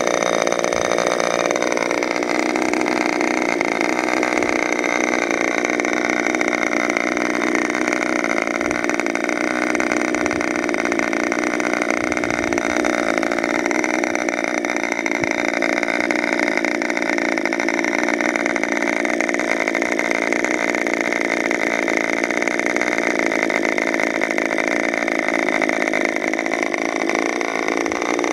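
C.F. Lee–modified K&B .61 two-stroke glow-fuel model airplane engine running steadily with its propeller turning. Its note dips slightly about two seconds in, wavers a little, and climbs again near the end.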